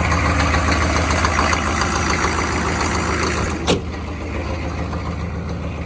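GM 6.5 L turbo diesel V8 idling steadily, just after a cold start made possible by jumping the glow plug relay. A single sharp knock about two thirds of the way through, after which the engine sounds a little quieter.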